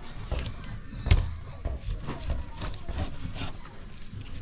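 A knife cutting and chopping through a large fish on a wooden chopping board, with several sharp knocks as the fish and blade strike the board; the loudest knock comes about a second in.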